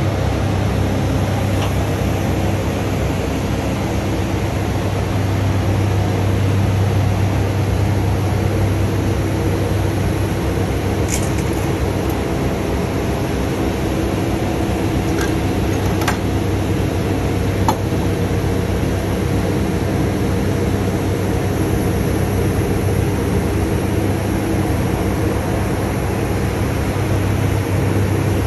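Truck diesel engine running steadily with a low, even drone, powering the hydraulics of a Fassi F380 loader crane as its boom folds down into the stowed position. A few faint clicks sound from the moving crane about halfway through.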